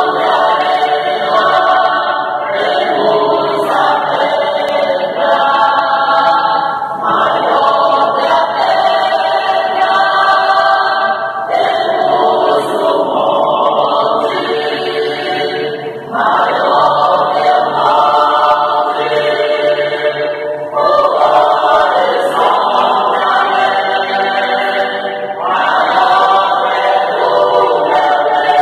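Mixed choir of men's and women's voices singing a Portuguese hymn in long held phrases, with brief dips between phrases.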